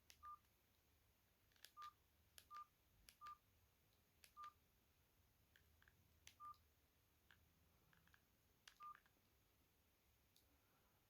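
Mobile phone keypad tones from a Mojo Chat phone: seven faint, short beeps of the same pitch, each with a soft button click, at uneven intervals as its keys are pressed to move through the menu.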